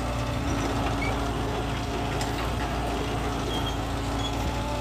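Furukawa mini excavator's diesel engine running steadily while the operator works the boom and bucket.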